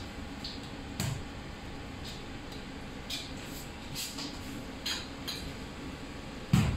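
Light clicks and taps of a filleting knife and chainmail glove against a plastic cutting board while trevally is filleted, with one louder thump near the end, over a steady low hum.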